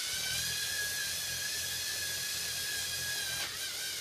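LEGO Mindstorms EV3 motors spinning the launcher's two wheels through a step-up gear train, making a high whine. The whine rises in pitch as the wheels come up to speed, then holds steady, with one brief dip in pitch near the end.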